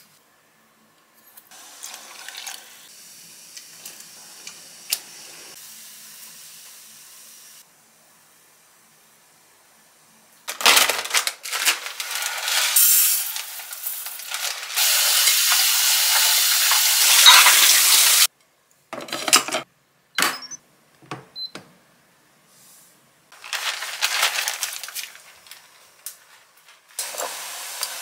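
Kitchen prep sounds in separate short takes. The loudest is about eight seconds of crinkling plastic and pouring, starting about a third of the way in, as a zip-lock bag of mixed-grain rice is opened and poured into a rice cooker's inner pot. A few short knocks of pots follow, then a steady hiss near the end.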